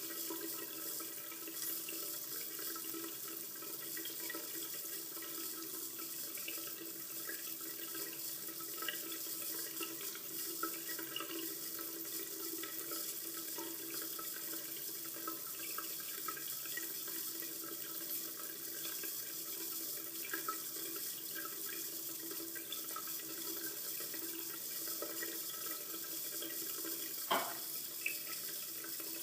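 Water running steadily from a commercial bathroom sink faucet and splashing into the basin and drain. A single brief knock sounds near the end.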